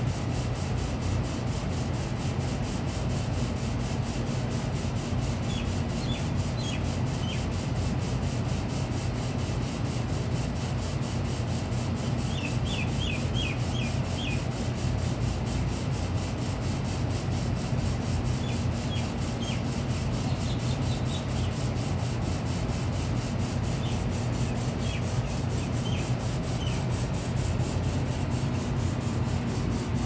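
A cat lapping milk from a paper cup, a soft rubbing sound under a steady low rumble. Short runs of quick high bird chirps come and go several times.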